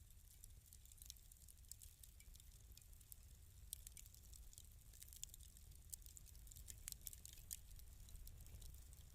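Wood fire in a fireplace crackling softly, with irregular small pops and snaps over a steady low rumble.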